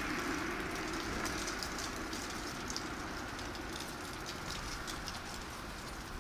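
Rumble of a passing vehicle, fading slowly away, with scattered faint high ticks over it.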